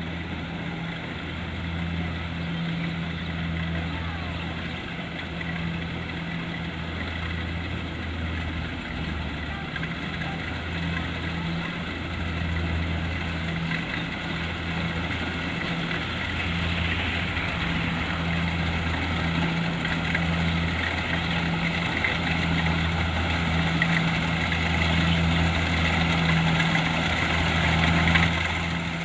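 Kubota DC-70 Plus combine harvester's diesel engine running steadily along with its machinery. The low drone swells and dips every second or two, and the machine noise grows louder near the end.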